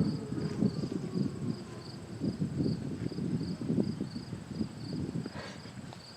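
Whelen Vortex R4 outdoor warning siren winding down at the end of its test, a falling tone that fades out within the first second or two. Insects chirp in a steady high pulse, about two or three a second, over a low, uneven rumble.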